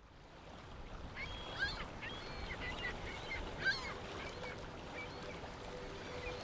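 Ring-billed gulls calling: many short, overlapping cries, with two louder calls about a second and a half and three and a half seconds in. The sound fades in at the start.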